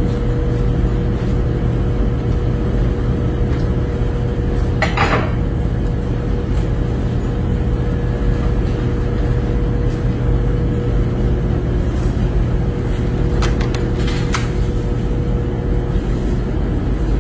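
Steady loud machine hum of hatchery incubator and ventilation fans, with a constant tone in it. Over it a few clatters and clinks of plastic egg baskets and eggs being handled, the loudest about five seconds in and a few more near the end.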